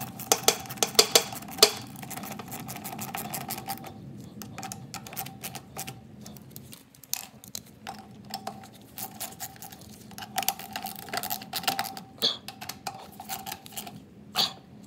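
Socket ratchet clicking in quick runs as screws are driven into a lawnmower's plastic air filter base, with a few louder clicks in the first couple of seconds, over a faint steady hum.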